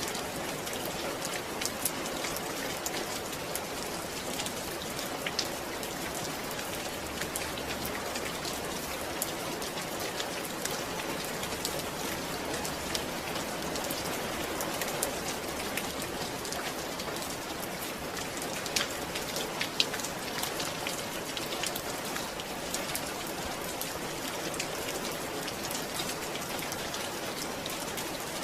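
Steady rainfall, an even hiss dotted with the sharp ticks of individual drops landing.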